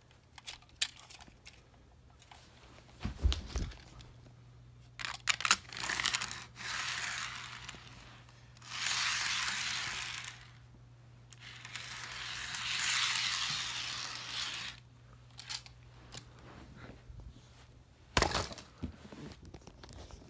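Packaging being handled: a few sharp clicks and knocks, then three stretches of crinkling and rustling, each lasting a second or two, with more clicks near the end.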